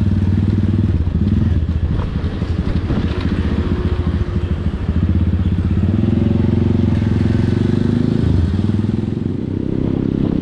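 Motorcycle engine running steadily while riding along a road. Its loudness dips briefly about two seconds in and again near the end.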